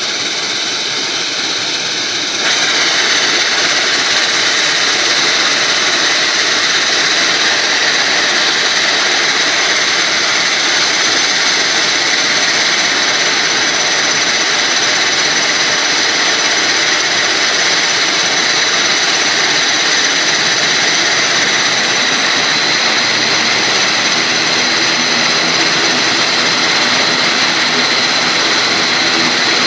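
An ATR 42-500's Pratt & Whitney PW127E turboprop engines running on the apron: a steady loud whine. It gets louder about two and a half seconds in, and a lower droning tone joins near the end.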